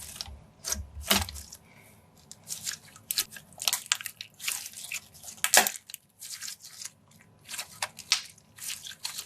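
Clear glue slime being squished and stretched by hand, giving a run of irregular sticky clicks and crackles.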